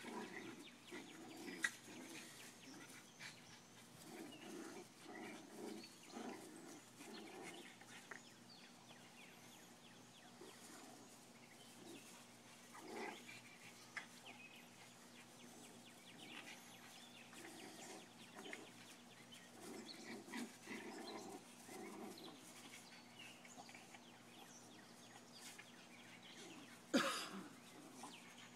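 Faint sounds of a Bugg puppy and a Boston terrier playing together, quiet grunts and scuffling, with one sharp knock near the end.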